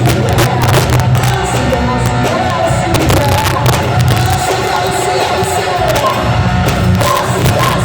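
Live band playing a gospel worship song: a drum kit keeping a steady beat over bass and sustained chords.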